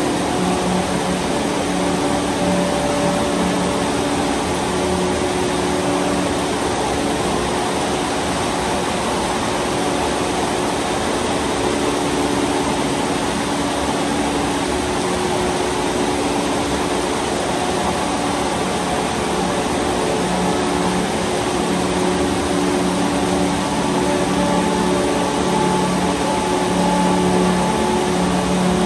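Steady rain falling on trees, grass and a metal roof, an even hiss. Under it a low steady hum, like a distant motor, fades in the middle and grows again near the end.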